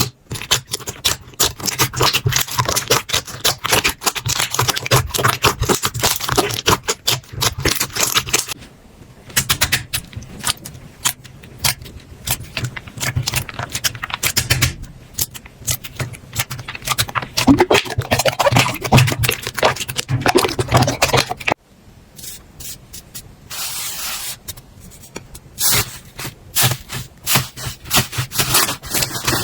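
Slime being squeezed and pressed by hand, making dense crackling and popping clicks, with a few short squelches. The sound changes abruptly about two-thirds of the way in as one clip gives way to another.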